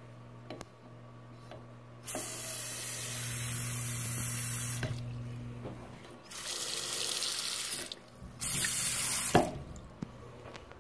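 Tap water running into a porcelain sink basin and down the drain in three separate runs, the first about three seconds long and the next two shorter, each stopping fairly abruptly, with a knock as the last one cuts off. A steady low hum runs underneath.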